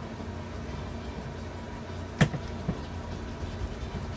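Pencil sketching lines on a painted wooden board, with one sharp tap about two seconds in and a few faint ticks after, over a low steady hum.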